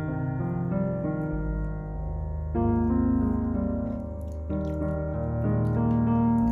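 Background piano music, sustained notes and chords changing about once a second.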